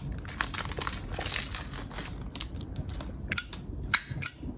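Brass-cased Zippo lighter being handled, then a few sharp metallic clicks with a short ring in the second half as its hinged lid is snapped open and shut.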